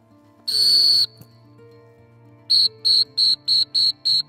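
Dog-handling whistle giving signals to a retriever: one long, high blast about half a second in, then a rapid run of about seven short toots, about four a second, from halfway through.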